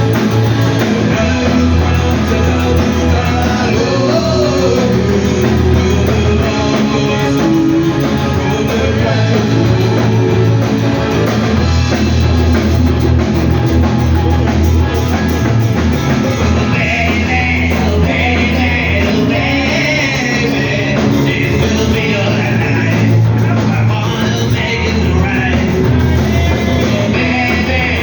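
Rock music playing loudly: a band with electric guitar and strong bass, with a voice singing. The upper sound grows brighter and fuller a little past halfway.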